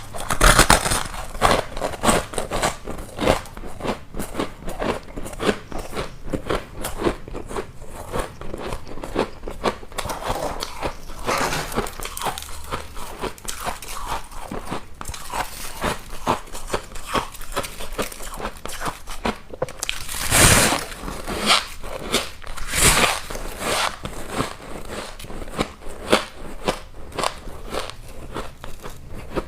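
Ice cubes being bitten and chewed close to the microphone: a dense run of crunching and cracking, with several louder bites breaking fresh pieces, one a little after the start, one near the middle and two about two-thirds of the way through.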